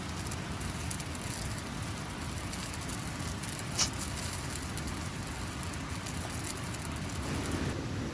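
Steady rain falling, with one sharp tap about four seconds in.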